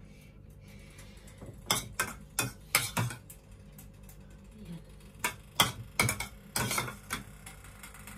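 A metal spoon clinking and scraping against a ceramic bowl and dish while scooping stuffing. There are two runs of sharp clicks, one about two seconds in and another about five seconds in.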